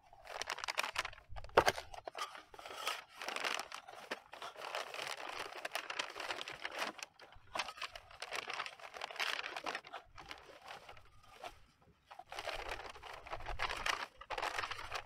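Brown kraft paper wrapping being crinkled and torn open by hand, with one sharp click a little over a second in. The rustling dies down for about two seconds near the end, then starts again.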